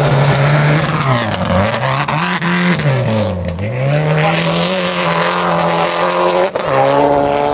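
Subaru Impreza STI rally car's turbocharged flat-four engine revving hard, its pitch dipping and climbing again twice as the driver lifts and changes gear, then holding high. A single sharp crack comes about six and a half seconds in.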